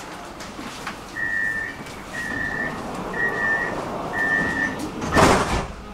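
Tram door-closing warning: four steady, high beeps about a second apart, the signal that the doors are about to shut. Near the end comes a short, loud burst of noise, over a low rumble of the tram.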